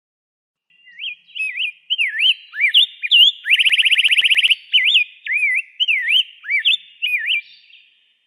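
Rose-breasted grosbeak singing: a phrase of rich, sweeping whistled notes that starts about a second in, breaks into a fast trill midway, then goes back to looping warbled notes before it stops near the end.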